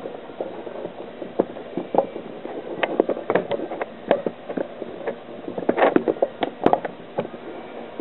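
Irregular small metal clicks and knocks, with one sharper knock near the end, from a small-engine cylinder head being handled on a wooden bench. A stiff exhaust valve spring is being pressed down by hand to slip its retainer off the valve stem.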